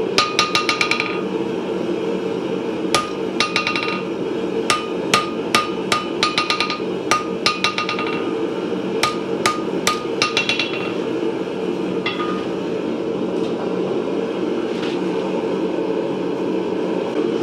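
Hand hammer forging hot steel on an anvil: a quick run of blows, then short groups of strikes, each leaving a ringing note. The blows stop about twelve seconds in, leaving only a few faint taps.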